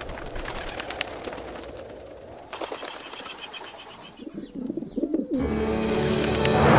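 Dove wings flapping in quick beats, then a few low cooing calls about four seconds in. Orchestral strings come in softly about five seconds in and swell.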